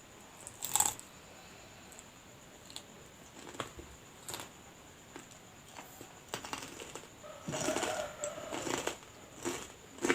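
Close-miked eating of a homemade lumpia spring roll filled with egg and sausage: short bites, crunches and mouth clicks at irregular moments, one sharp crunch about a second in and a busier run of chewing near the end.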